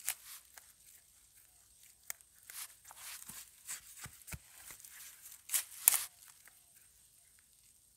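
Hand digging in dry, crumbly soil: a digging tool strikes and scrapes the earth around a wild yam tuber, with irregular crunching knocks and the rustle of dry leaves and roots. The loudest strokes come about five and a half to six seconds in, after which the digging goes quiet.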